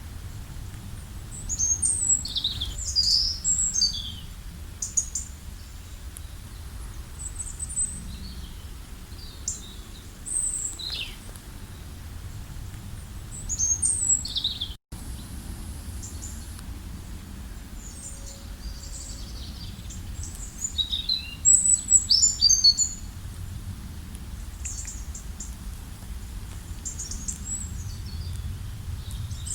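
Several small birds chirping and calling in short high clusters, busiest about three-quarters through, over a steady low outdoor rumble. The sound cuts out for an instant about halfway.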